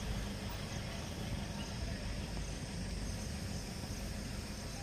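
Steady outdoor ambience: insects chirring over a constant low rumble.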